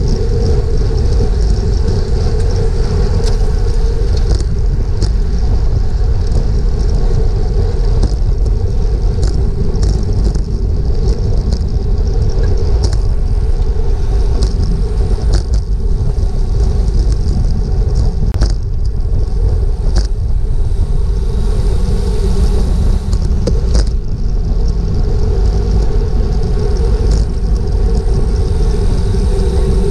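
Wind buffeting an action camera's microphone on a road bike at racing speed, a loud, steady low rumble mixed with tyre noise on asphalt, with a few sharp clicks scattered through it.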